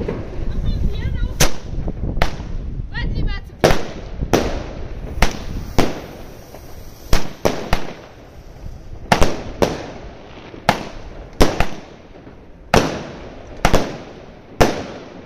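Pirotecnia El Gato 50-shot, 20 mm consumer firework cake firing: a string of sharp reports, the first about a second and a half in, then roughly one or two a second at uneven spacing as the shots launch and burst.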